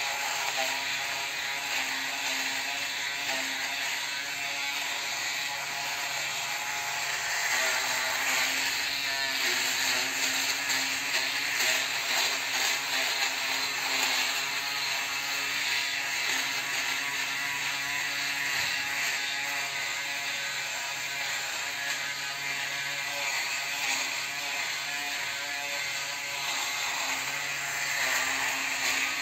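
Braun Series 3 ProSkin 3010s electric foil shaver running with a steady buzz as it is drawn over stubble, cutting the whiskers.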